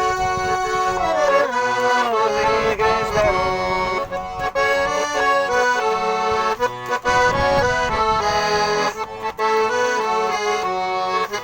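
Russian garmon (button accordion) playing an instrumental passage of a song's melody over chords.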